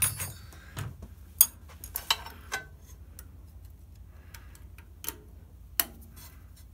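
Irregular sharp clicks and knocks of metal tools and parts being handled on a brake lathe's gearbox: a quick handful in the first three seconds and two more near the end, over a low steady hum.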